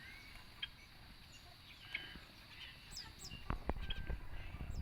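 Birds chirping: scattered short high chirps and a few quick sweeping calls. From about two-thirds of the way in comes a low rumble with a few knocks.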